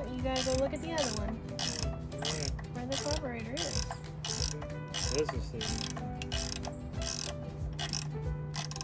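Hand ratchet wrench clicking in repeated back-and-forth strokes as bolts on top of a 1937 Allis-Chalmers Model B tractor engine's valve cover are worked loose.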